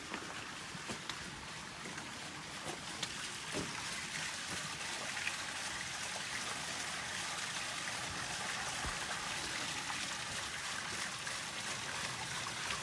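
Water splashing and trickling steadily as it spills from a wooden chute onto a small turning overshot water wheel.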